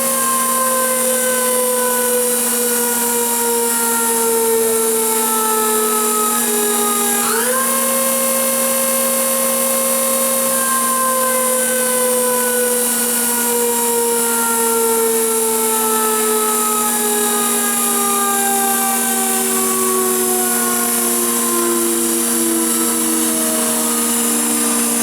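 The 26,000 RPM wheel-head spindle of a Cincinnati Heald 273-A internal grinder whining over a steady hum. Its pitch slides slowly down, jumps back up once about seven seconds in, then slides down again, with the spindle being brought down in speed.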